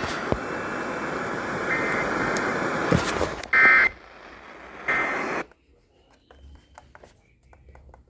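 Emergency Alert System end-of-message data tones: three short bursts of warbling digital tones over hissing radio static, the middle one loudest. About five and a half seconds in, the static cuts off, leaving near silence with faint clicks.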